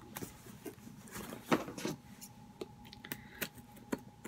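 Scattered light knocks and rustles of a cardboard subscription box and its contents being picked up and handled, the sharpest knock about one and a half seconds in.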